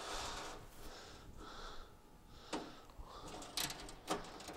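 Faint rustling of a wiring harness being handled and fed in by hand, with a few light clicks, about two and a half, three and a half and four seconds in.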